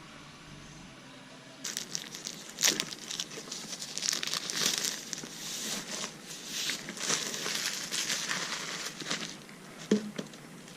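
Gift-wrapping paper crinkling and rustling as it is handled and folded, in uneven bursts that start a little under two seconds in, with a sharp knock near the end.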